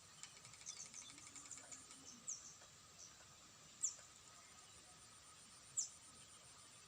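Faint high bird chirps: a quick run of short chirps in the first two seconds, then three sharp chirps that sweep downward, about two seconds apart, over a faint steady high hum.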